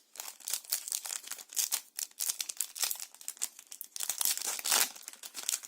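Foil booster-pack wrapper crinkling and tearing as it is opened by hand, a dense run of crackles that is loudest about four to five seconds in.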